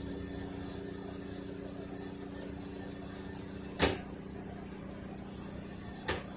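Hitachi Beat Wash BW-V80A washing machine spinning with a steady hum, broken by a loud clunk about four seconds in and a second, smaller one near the end. The clunk is the abnormal spin-cycle noise that the owner suspects comes from a failing drive unit around the clutch.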